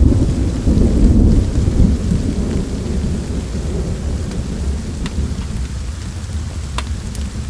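A thunder rumble, heavy at first and slowly dying away, over steady rain, with a few sharp crackles near the end.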